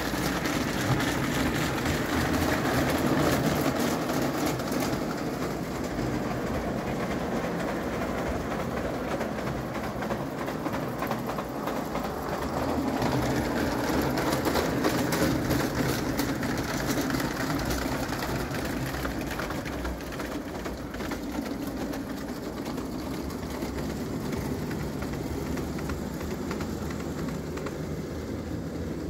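A spirit-fired live-steam gauge 0 tinplate locomotive, a 1905 Bing, running with its train on tinplate track: a steady clattering rumble of wheels on the tin rails. It gets louder twice, a few seconds in and again about halfway, as the train passes close.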